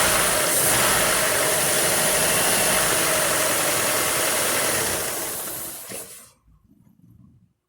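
Chevrolet Opala engine running just after a test start on a new flywheel ring gear and overhauled starter, then switched off about five seconds in and dying away by about six seconds.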